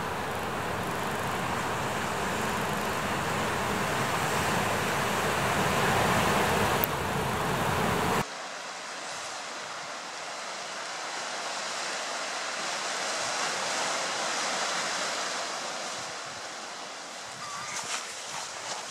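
Steady outdoor noise of wind and surf, full and deep at first. About eight seconds in it changes suddenly to a thinner, hissier wash.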